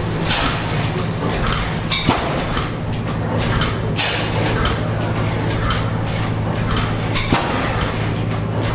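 Several antique stationary gas engines running together: a steady low hum with irregular knocks and clicks over it.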